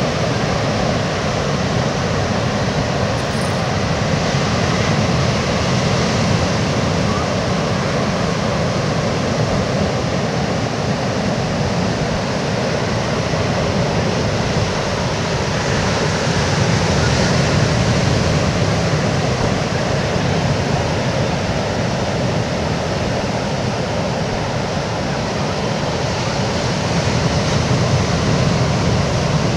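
Ocean surf washing steadily onto the beach, a continuous rushing noise that swells and eases slowly.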